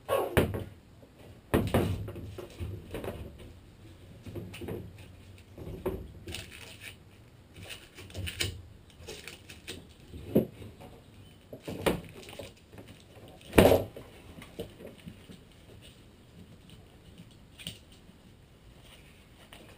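Sheet aluminum skin being worked by hand around the curved tail section of a teardrop trailer: irregular knocks and clatter, with one louder bang about 14 seconds in.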